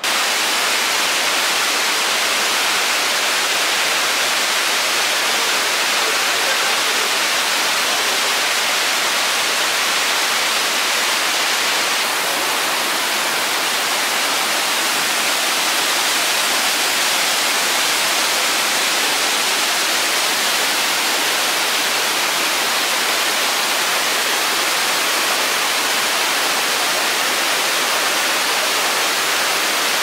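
Fukuroda Falls, a tall four-tiered waterfall, pouring over broad rock faces: a loud, steady rush of falling water.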